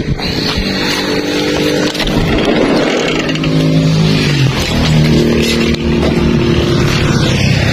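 Motorcycle engine running close by, its pitch falling about four seconds in and then holding steady.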